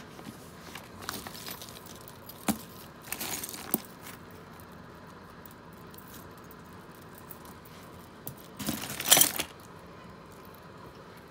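Pieces of costume jewelry clinking and jangling as they are handled and set aside: a few scattered clicks, then a louder rattle of metal pieces knocking together about nine seconds in.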